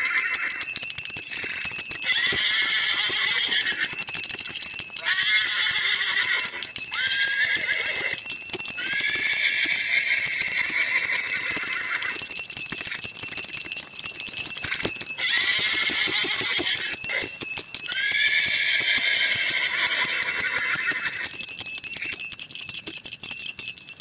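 Anklet bells (ghungroo) jingling in repeated bursts of one to three seconds with short gaps, over a steady high-pitched whine.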